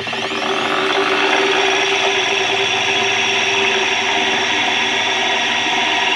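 Corded electric drill starting up and running steadily at speed, its diamond core bit grinding a hole into wet glass.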